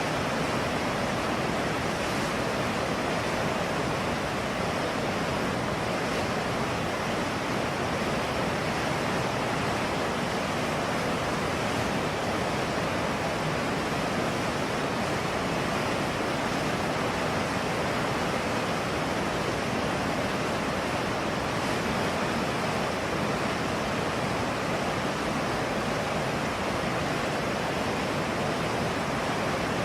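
Trancura River's fast-flowing water rushing steadily, an even, unchanging wash of noise.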